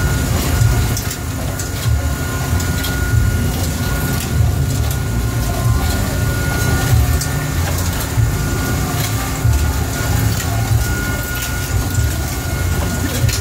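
Longline boat's hydraulic deck machinery running with a loud low drone and a thin steady whine, with frequent metallic clicks of longline hooks clattering on the hook rail.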